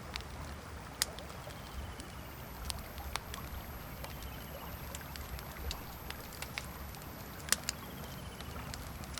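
Campfire crackling, with sharp wood pops scattered through, the loudest about a second in and about seven and a half seconds in, over the steady low rush of a river.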